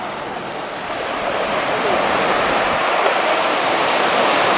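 Steady rush of small waves breaking and washing up on a beach.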